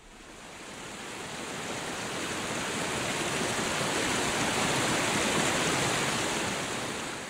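Fast river water rushing over rocks, a steady full rush that swells in and then fades away near the end.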